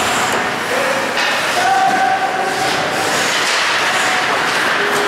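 Ice hockey game in play: a steady scraping hiss of skates carving the ice, with a few voices calling out over it.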